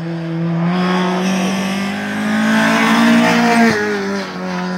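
Peugeot 208 rally car's engine running hard at high revs as the car drives past close by, growing louder toward the middle. The engine note breaks off briefly about three and a half seconds in, then holds steady again.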